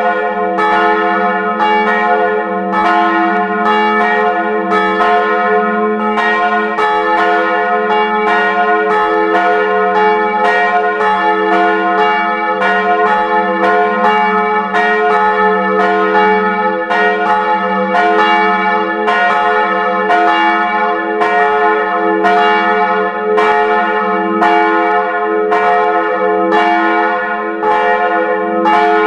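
Full peal of two electrically swung bronze church bells, heard close up inside the bell tower. The large bell (f', cast 1899 by M. & O. Ohlsson, 110 cm) and the small bell (a-flat', cast 1985 by Karlsruher Glockengießerei, 92 cm) strike in an uneven interleaved rhythm, a stroke roughly every second or less, over their steady sustained ringing.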